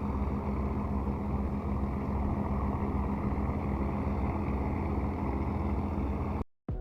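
A vehicle engine running steadily with a low drone, cutting off suddenly near the end.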